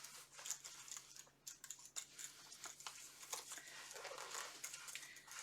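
Faint rustling and scattered light clicks from a linen belt with leather strapping and nylon webbing being handled.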